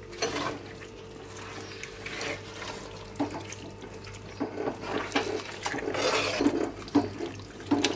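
Wooden spatula stirring wet chicken masala, with water just added, in a clay handi pot: irregular wet squelching and scraping strokes, busier and louder in the second half.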